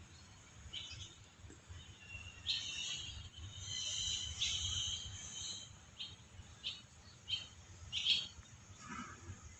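Birds chirping: a few short, high chirps, a longer busy twittering stretch from about two and a half to nearly six seconds in, then single chirps spaced about a second apart.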